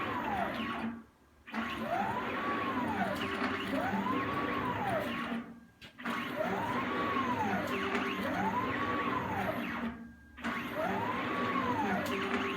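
CNC plasma table cutting circles: the plasma torch hissing while the stepper motors whine in a tone that rises and falls in pitch about once a second as the gantry traces each circle. The sound stops briefly three times, between one circle and the next.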